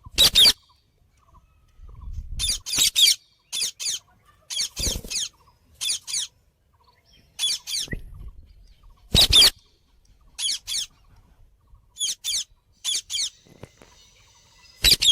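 Parrot calling in short, sharp, high-pitched shrieks, mostly in quick pairs or threes, repeated every second or so.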